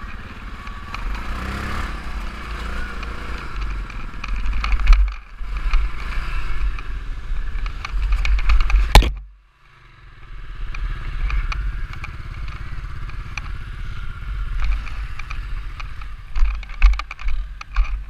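Quad (ATV) engine running under wind rumble on an onboard camera, with a loud knock about nine seconds in followed by a brief drop-out, then the engine again and a run of clattering knocks near the end.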